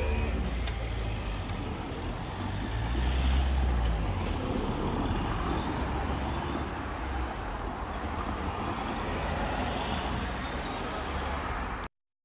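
Road traffic rumbling over the level crossing once it has reopened, louder about three to four seconds in as a vehicle passes close. Right at the start the crossing's squeaky alarm tone cuts off, and the sound stops abruptly near the end.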